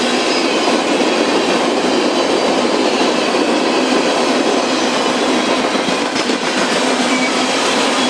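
Freight train tank cars rolling past close by: a steady noise of steel wheels running on the rails, with faint high squealing tones from the wheels.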